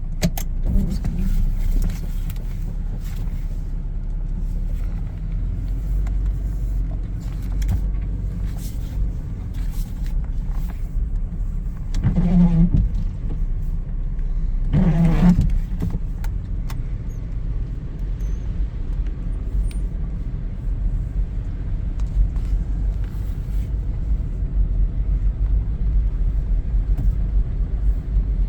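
2001 Toyota 4Runner Limited's 3.4-litre V6 running with a steady low rumble. Two short pitched noises about twelve and fifteen seconds in, each lasting about a second, are the likely candidates for the weird strumming noise.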